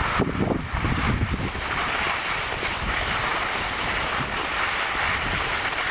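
Wind buffeting the microphone and skis sliding over snow on a downhill ski run: a steady rushing hiss, with heavier low gusts of wind on the microphone in the first second and a half.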